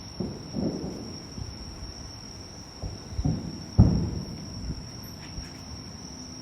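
Distant fireworks shells bursting as low booms, several of them, the loudest about four seconds in. Underneath, insects keep up a steady high-pitched trill.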